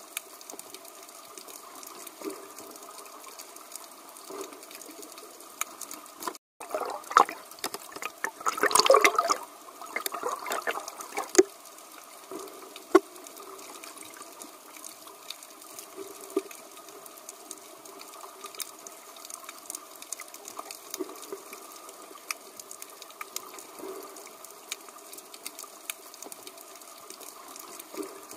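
Underwater ambience: a steady wash of water noise with scattered small clicks, and a louder rushing surge from about seven to eleven seconds in.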